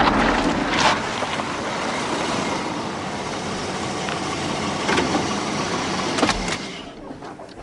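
Cars coming to a stop on a road shoulder: engine and tyre noise with a few brief sharp sounds, dying away near the end.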